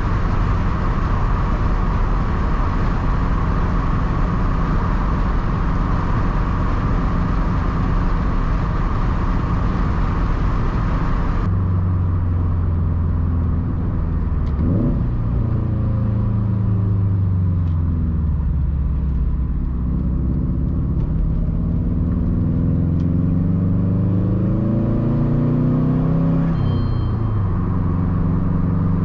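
2013 Subaru STI's turbocharged flat-four engine running through a titanium Tomei Expreme Ti turboback exhaust while driving. At first it cruises steadily under heavy road noise. After an abrupt change about eleven seconds in, the exhaust note falls away as the car slows, climbs again as it accelerates, and drops once more near the end.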